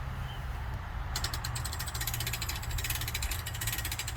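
Hand-crank winch being cranked, its ratchet pawl clicking in a rapid, even run that starts about a second in.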